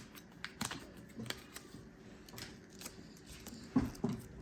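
Light, irregular plastic clicks and taps from a computer keyboard and its keycaps being handled, about ten in all, with a slightly louder knock near the end.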